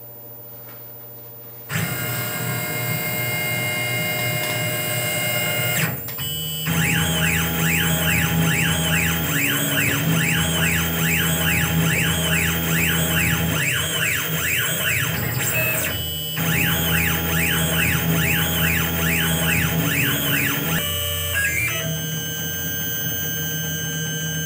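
Tormach PCNC 1100 mill's stepper-driven axes whining as the drag knife traces small circles. The pitch rises and falls about twice a second in a regular pattern, broken by two brief pauses between cuts. The first couple of seconds are quieter, before the machine starts moving.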